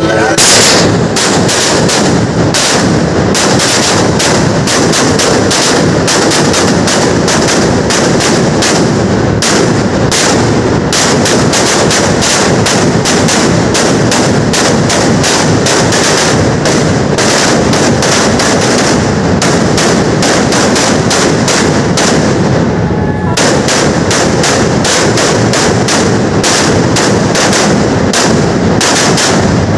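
Ground firecrackers exploding in a rapid, unbroken barrage of loud bangs, so close together that they run into one continuous crackle. It thins briefly about three-quarters of the way through, then picks up again.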